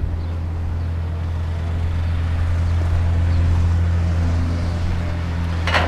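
Petrol vibratory plate compactor running steadily while tamping sand, a constant low drone.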